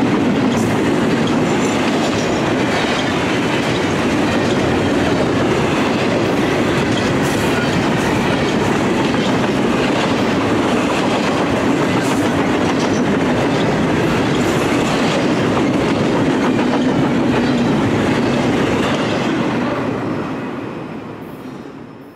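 Double-stack intermodal freight train's container cars rolling past, a steady rumble with wheels clicking over the rail joints; the sound fades away near the end as the last cars go by.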